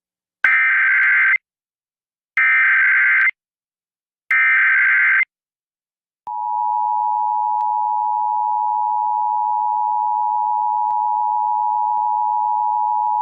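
Emergency Alert System header: three one-second bursts of warbling digital SAME data, each followed by a second of silence, then the steady two-tone EAS attention signal that continues through the end. Together they open a Local Area Emergency alert.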